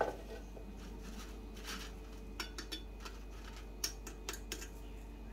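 A knock as the airfryer drawer with its basket of fries is pulled out. Then a scatter of light clicks and ticks as crisp fried potato sticks are picked up and knocked against each other and the basket, over a faint steady hum.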